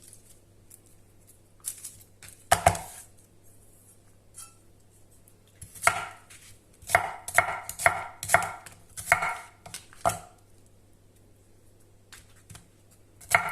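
Kitchen knife chopping an onion on a cutting board: one sharp chop a couple of seconds in, then a quick run of about eight chops in the middle.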